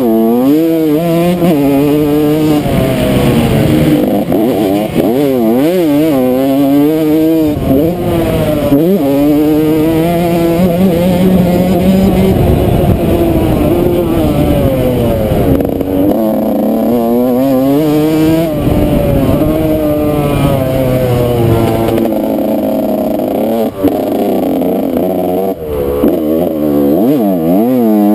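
Yamaha YZ125 two-stroke single-cylinder dirt bike engine being ridden hard, its pitch climbing and falling over and over as the throttle is opened and shut through the gears, with a few brief drops where the throttle is chopped. Wind rumbles on the microphone underneath.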